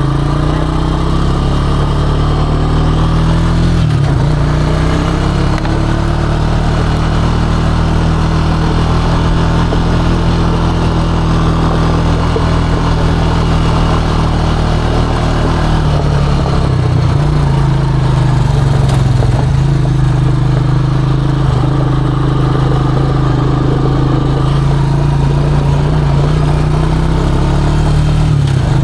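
ATV engine running steadily under way, its pitch dipping and recovering briefly about four seconds in and again around the middle.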